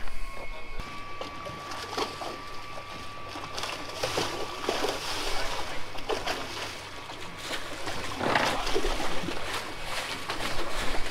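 Seawater sloshing and slapping against the hulls of two boats lying side by side, with a few louder splashes, the strongest about eight seconds in.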